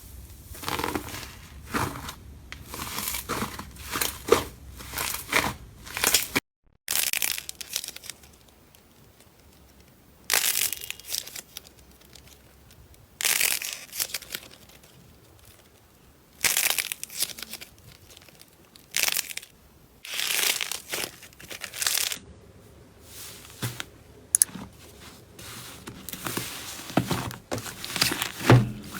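Slime being squeezed and pulled apart, crackling and crinkling in a string of short bursts with quieter gaps between.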